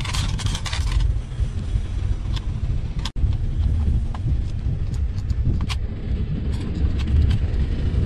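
A few light plastic clicks and taps from a power plug being worked into a stiff plug adapter, over a steady low rumble.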